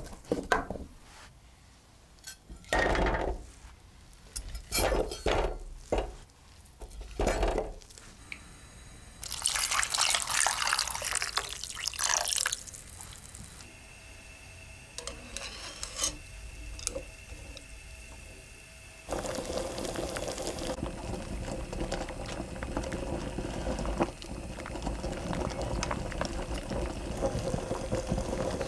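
Raw potato chunks dropped into a saucepan in a few handfuls with dull clunks, then water poured over them for about three seconds. About two-thirds of the way in a steady rush starts as the pan heats on the stove, and the water comes to a boil.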